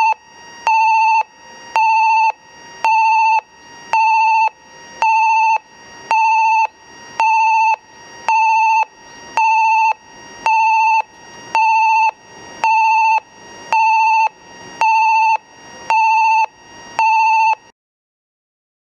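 Railway station train-approach warning alarm sounding, the signal that a train is nearing the station: a high electronic beep repeating about once a second, each beep just over half a second long. It cuts off abruptly near the end.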